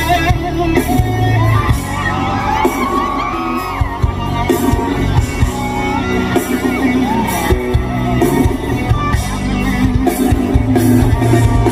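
Loud live band music over a concert PA, with voices whooping and shouting over it, their cries sliding up and down in pitch for a few seconds after the start.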